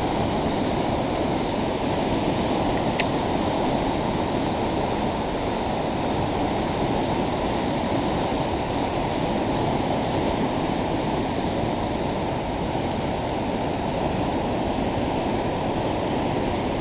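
Fast, turbulent river current rushing over rapids: a steady, unbroken rush of water.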